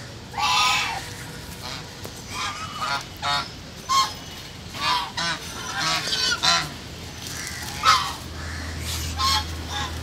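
A flock of white domestic geese honking: about a dozen short calls, one after another at uneven gaps, as the birds crowd round begging for food.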